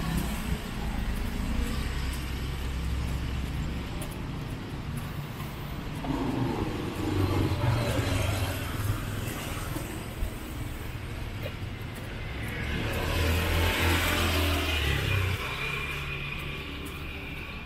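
Motorcycles passing along a narrow street over a steady low hum of traffic, with two louder swells as bikes go by, one about seven seconds in and a longer one around thirteen to fifteen seconds in.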